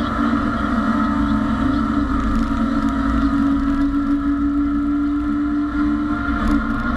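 A BMW race car's engine heard from inside the cabin, pulling hard at high revs with a steady, slightly rising note. About six seconds in the note dips briefly and steps down as the driver changes up a gear.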